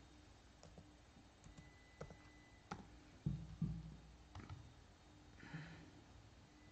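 A few scattered computer keyboard keystrokes typing into a search box, with two dull low thumps about three seconds in, the loudest sounds.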